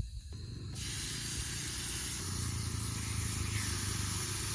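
Portable camping gas stove burner hissing steadily, coming on suddenly about a second in, with a low rumble underneath.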